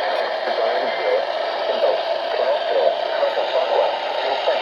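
Weather radio broadcast received through heavy static: the announcer's voice reading the warning is faint and hard to make out under a steady hiss.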